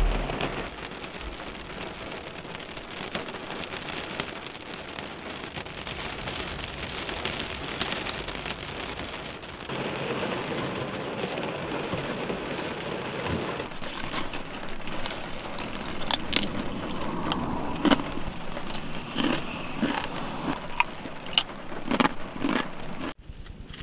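Rain drumming steadily on the roof of a parked car, heard from inside the cabin. From about halfway through, a plastic snack bag crinkles and crackles as it is handled, in sharp clicks over the rain.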